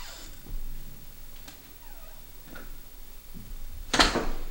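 Front door swung shut, closing with one sudden knock about four seconds in. Faint creaks come before it.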